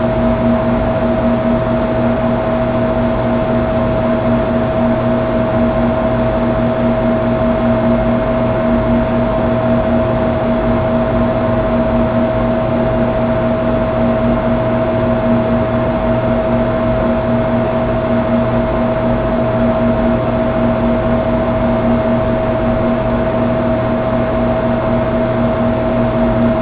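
Steady, unchanging hum and hiss with a constant mid-pitched tone and a lower buzzing tone, like machine or electrical noise.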